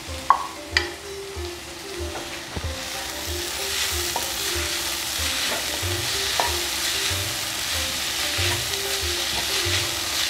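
Chopped spinach being stirred into sizzling spice masala in a pan: a frying sizzle that grows louder about three seconds in, with a few sharp knocks of the stirring utensil against the pan.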